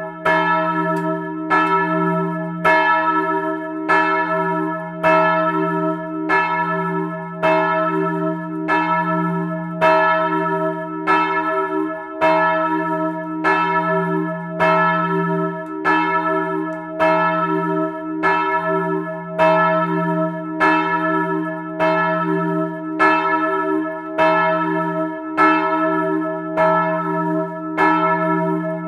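A swinging church bell struck by its clapper about once a second, heard close up in the belfry. Its deep hum and higher tones ring on between the strikes.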